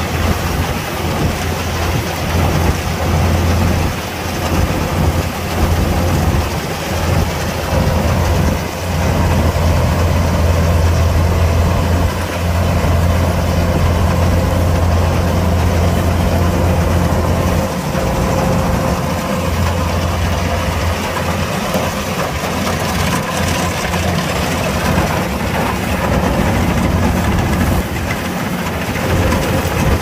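Kubota DC-105X combine harvester running steadily: a continuous deep diesel drone with a fainter steady hum above it. The low drone eases a little about two-thirds of the way through.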